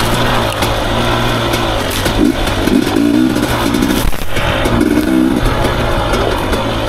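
Husqvarna TE250i two-stroke enduro motorcycle engine revving up and down under the rider's throttle, with the throttle briefly chopped about four seconds in. Scattered clicks and knocks from the bike over rough ground.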